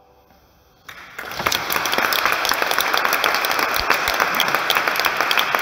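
Audience applause breaking out about a second in, after the tail of the choir's final chord has died away, then continuing as steady, dense clapping.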